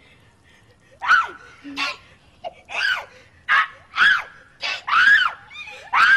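A shrill voice giving a rapid series of about eight short squealing cries, each rising then falling in pitch, starting about a second in.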